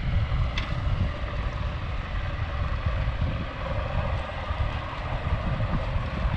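Wind buffeting the microphone in an irregular low rumble over the steady wash of open sea, with a brief click about half a second in.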